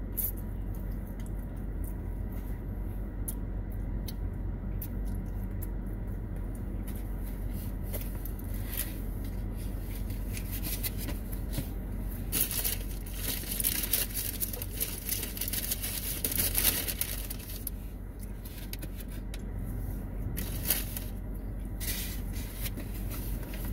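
Close-up chewing and mouth sounds of someone eating takeout, with scattered small clicks. A stretch of rustling and crinkling comes about halfway through, over a steady low hum inside the car.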